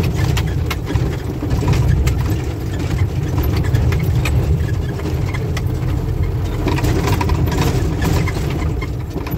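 Mack truck's diesel engine running, heard from inside the cab while driving over a badly damaged road, with frequent rattles and knocks from the jolting cab.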